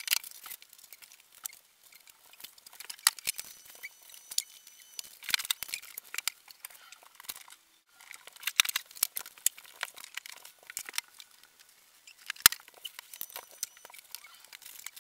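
Rapid, irregular clatter and rustling of small objects being picked up and put away in sped-up tidying, so the handling noises come out as quick high clicks and patter. A sharp knock stands out about twelve seconds in.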